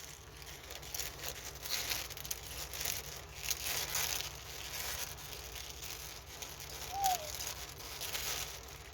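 Small plastic bags of diamond painting drills crinkling and rustling as they are handled and sorted through, in short irregular strokes.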